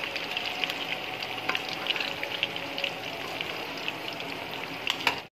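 Battered fish pieces deep-frying in hot oil in a wok, a steady sizzle with frequent small crackles and pops.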